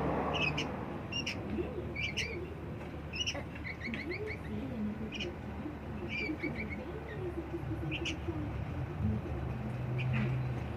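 Sooty-headed bulbul (kutilang) giving short, high chirps about once a second, with a quick run of several notes about four seconds in, over low background noise.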